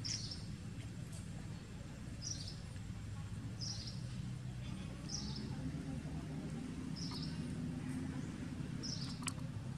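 A bird repeating a short high chirp about every one and a half to two seconds, over a low steady rumble.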